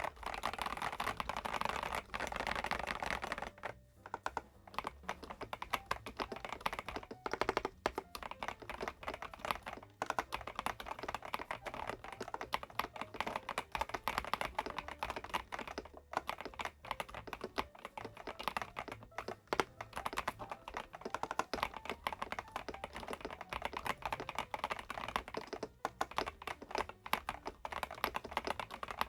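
Typing on an Epomaker DynaTab 75X gasket-mounted mechanical keyboard with Epomaker Flamingo switches: fast, steady keystroke clicks with a brief pause every few seconds.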